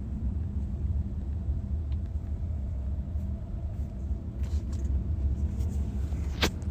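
Steady low road rumble inside the cabin of a moving car, with one short, sharp knock near the end.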